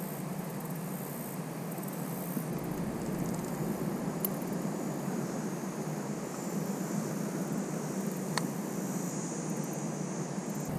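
Steady rushing outdoor background noise with a low hum in it, broken by two short sharp clicks about four seconds apart.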